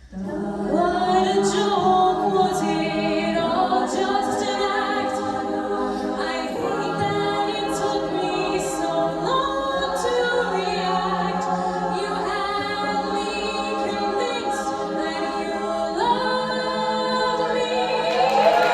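A cappella vocal group singing in harmony without instruments, with a steady low note held under shifting chords.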